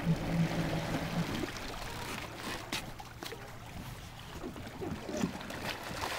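Jet ski engine running at low speed with a steady hum, cutting off a little over a second in. After it, a quieter stretch with a few faint knocks.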